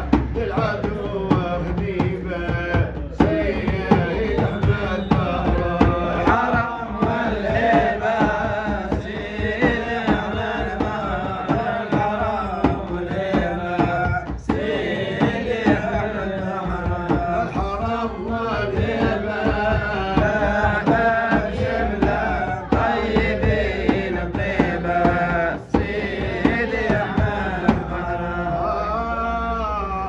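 Sufi praise music (madih): a melodic line over steady hand-drum beats.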